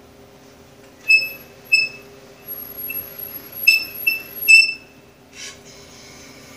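Delta bandsaw wheel turned by hand with its blade on, giving a series of about six short, high-pitched squeaks over a few seconds, followed near the end by a brief scrape.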